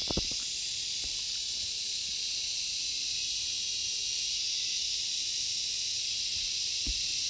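Steady, high-pitched hiss of an outdoor insect chorus, with a couple of soft knocks from hands handling the potted orchid near the start and near the end.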